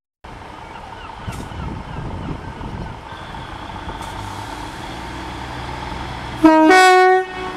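A Class 153 diesel railcar's underfloor engine idles with a steady low rumble. About six and a half seconds in, a loud two-tone train horn sounds once for under a second, a lower note stepping up to a higher one.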